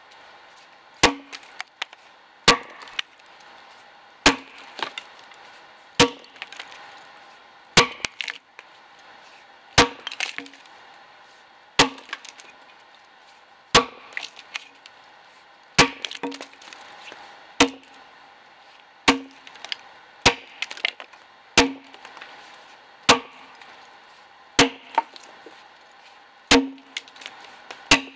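Axe blows chopping into the side of a dead ash log being hewn: a sharp woody strike about every one and a half to two seconds, some followed by a lighter second knock.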